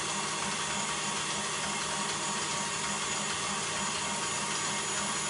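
Electric stand mixer running at a steady speed, whipping meringue: a continuous whir with a faint, even pulse.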